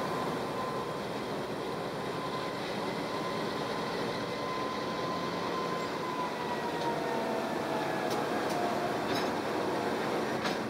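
Two NR class diesel-electric locomotives passing close below, their engines running. A high whine falls in pitch from about halfway through, and a few sharp clicks come near the end.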